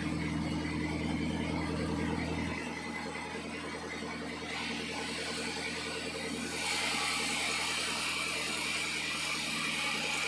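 Sawmill machinery running: a steady low hum that drops away about two and a half seconds in, and a hiss that grows louder about two-thirds of the way through.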